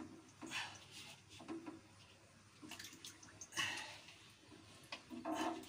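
Water in a tank splashing and dripping faintly as the ball float of a float valve is moved in and out of it, with a few light knocks. A short whine-like sound comes near the end.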